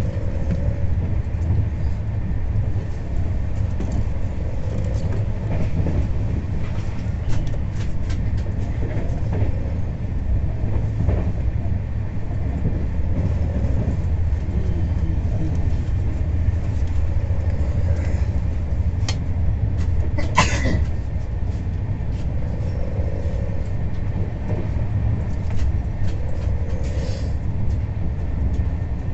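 Steady low rumble of an express train's passenger coach running at speed, heard from inside the coach: wheels on the rails with scattered faint clicks, and one sharper clack about two-thirds of the way in.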